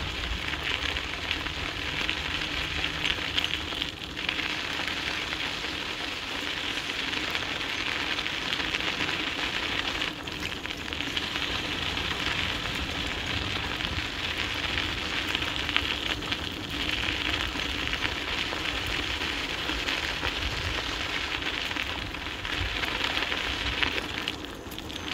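Dog scooter's tyres rolling over a dirt trail, a steady gritty hiss that eases off briefly a few times, with low rumbling from wind on the microphone.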